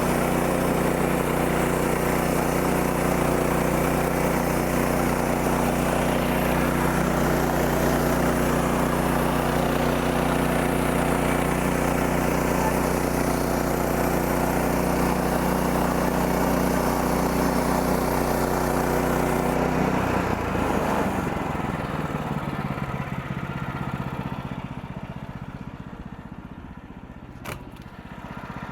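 Sawmill's gasoline engine running steadily at speed, then throttled back about two-thirds of the way through, its sound falling away over several seconds. A single sharp click comes near the end.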